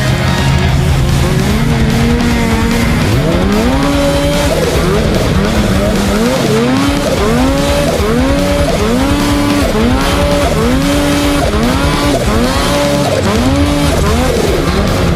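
Snowmobile engine revving up again and again, its pitch climbing and then holding, about once a second, over loud rock music.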